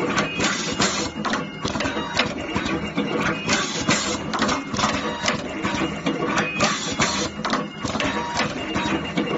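Fully automatic wire cutting, stripping, twisting and terminal-crimping machine running, with a fast, irregular clatter of mechanical clicks and knocks as it cycles through the wire.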